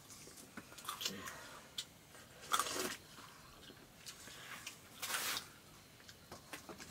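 People eating by hand from metal plates: a few short slurps, about one, two and a half and five seconds in, with soft eating noises between.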